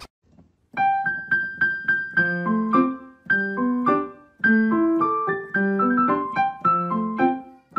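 Background piano music: a light melody of quick, fading notes over lower accompanying notes, starting after a brief silence under a second in.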